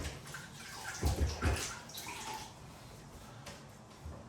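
Wallpapering sponge being rinsed out in a bucket of water, with splashing loudest about a second in.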